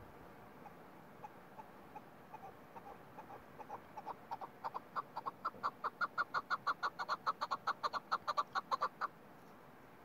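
Chukar partridge calling: a run of short clucking notes that starts sparse and slow, then speeds up and grows louder to about four a second before stopping abruptly about nine seconds in.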